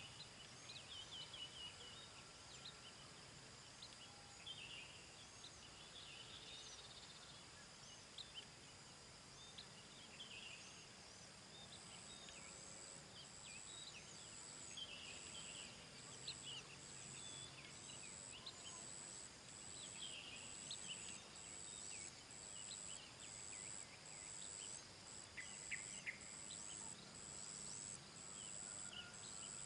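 Faint outdoor ambience of small birds chirping now and then over a steady high whine. From about twelve seconds in, a very high call pulses roughly once a second.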